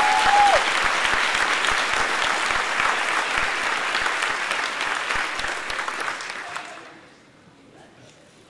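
Audience applauding, with a short high-pitched call right at the start. The applause dies away about seven seconds in.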